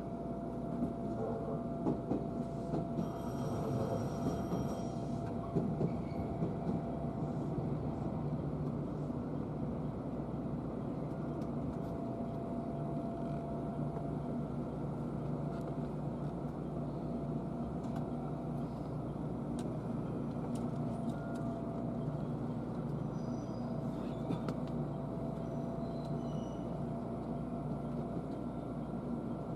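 Passenger train running on the rails, heard from inside the car: a steady rumble with a faint constant whine, and a few light clicks in the first several seconds.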